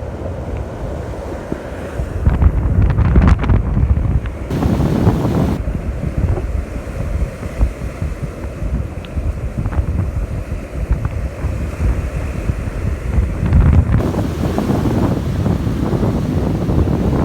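Surf washing on the beach, with wind buffeting the microphone in heavy gusts that are loudest about two to four seconds in and again near the end.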